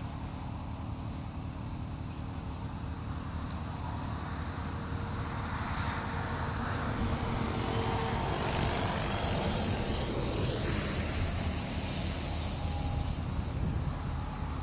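Radio-controlled F3C aerobatic helicopter flying, its rotor and engine whine growing louder about a third of the way in and sliding in pitch as it manoeuvres closer.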